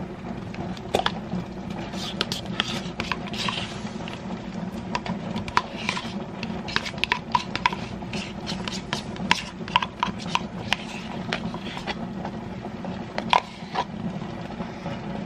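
Metal spoon scraping sour cream out of a plastic tub and knocking against the tub and a glass bowl: many light, irregular clicks and short scrapes.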